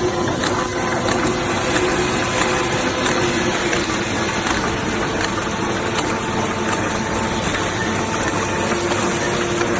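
Automatic fold-wrapping machine for bouillon cubes running: a steady hum under a dense, rapid mechanical clatter.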